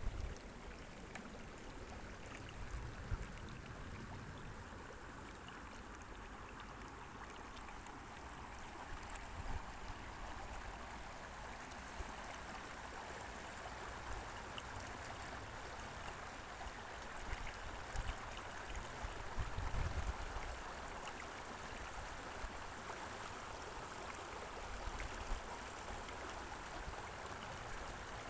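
Shallow creek flowing over a pebbly bed, a steady babble of running water. Brief low rumbles come in a few seconds in and again about two-thirds through.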